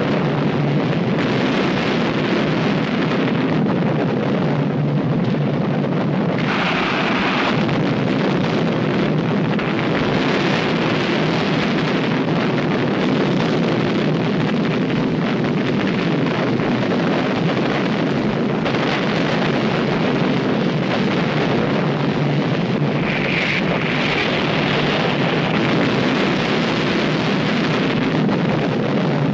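Continuous loud rushing rumble with no pitch, like the roar of a billowing eruption, swelling into a brighter hiss about six seconds in and again near the end.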